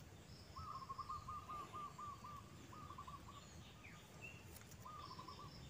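A wild bird calling in a quick run of short, even, hooting notes, repeated three times, the first run the longest, with fainter high chirps from other birds around it.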